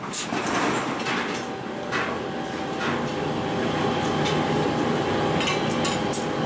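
Forge-shop din: a steady mechanical rumble with a faint steady hum, broken by a few sharp metal clanks and scrapes as steel bars and tongs work a red-hot forging.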